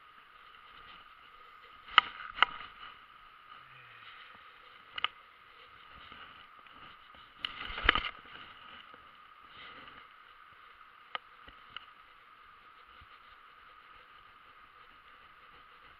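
Fast-flowing river rushing steadily, with a few sharp knocks and clicks over it: a pair about two seconds in, one at about five seconds, a louder cluster around eight seconds, and two fainter ones later.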